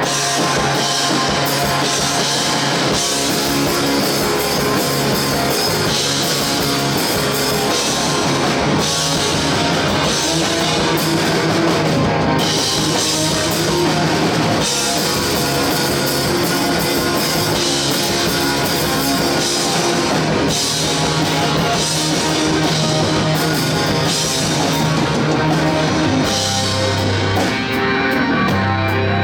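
Rock music with electric guitar and drum kit, playing loud and steady throughout.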